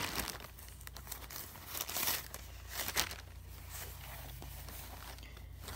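Glove packaging crinkling and rustling as it is handled and pulled at, in a few short bursts, over a steady low hum.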